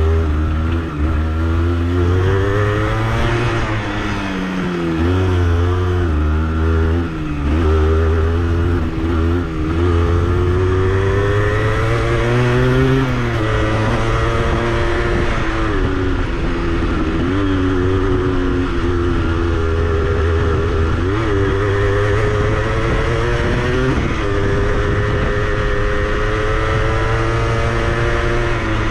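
Honda CRM80's two-stroke single-cylinder engine running under way, its pitch climbing and dropping again and again with the throttle.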